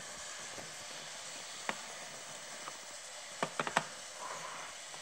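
Faint handling of a model car's box and packaging: a single click, then three quick clicks and taps a couple of seconds later, over a steady low hiss.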